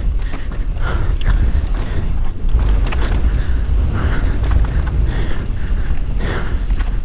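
Wind rumbling over an action camera's microphone and mountain bike tyres running on a dry dirt trail during a fast downhill descent, with the rider breathing hard and a few short rattles from the bike.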